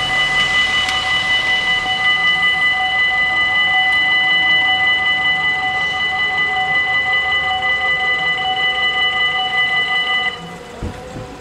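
Level-crossing warning bells ringing with a loud, quickly pulsing multi-pitched tone while the barriers come down. They cut off suddenly about ten seconds in, once the barriers are lowered, and a low knock follows.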